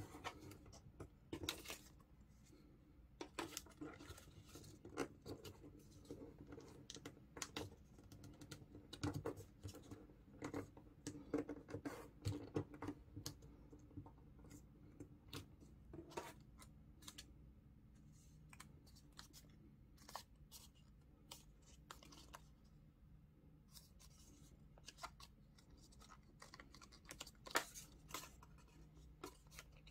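Folded A4 paper being handled and creased by hand: faint, irregular crinkles, crackles and small taps, busiest in the first half, with one louder crackle near the end.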